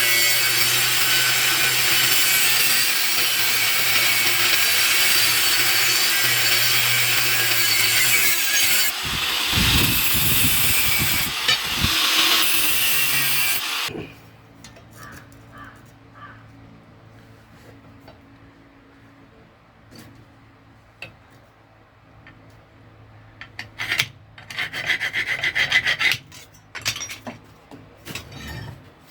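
A power tool, most likely a grinder, working steel from a leaf spring: a loud, steady rasping with a low motor hum, which cuts off suddenly about halfway through. A shorter burst of the same grinding comes later.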